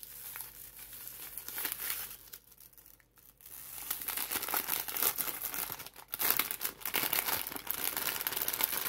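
Cellophane bag crinkling as it is untied and pulled open by hand, with a quieter lull about three seconds in.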